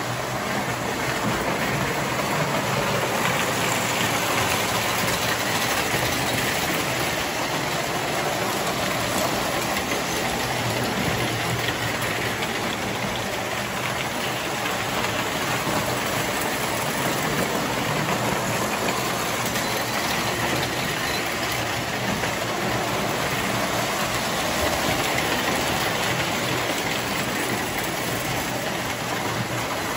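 Three-rail O-gauge model trains running on the layout's track: a steady whir and rattle of wheels and motors.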